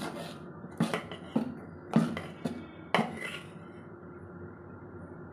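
Metal ladle striking the rim of a metal pot of batter while stirring and scooping, five sharp clinks about half a second apart that stop about three seconds in.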